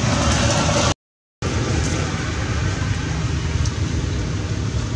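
Steady outdoor background rumble and hiss with no clear single source, cut to dead silence for about half a second around a second in.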